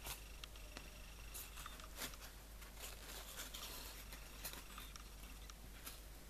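Faint handling noise: scattered sharp clicks and light rustling as hands pull out the pins that hold a freshly tatted Cluny leaf to a white pinning board. The rustling is busiest about halfway through.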